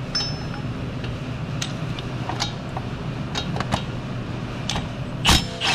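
A few scattered metal clicks and taps as a socket on an extension is fitted and worked onto a 14 mm bolt behind the power steering pump pulley, with one sharper knock near the end, over a steady mechanical hum.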